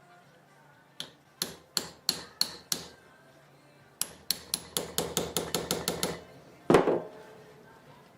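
Small hammer tapping repeatedly: six even taps, then a quicker run of about a dozen, then one heavier blow near the end.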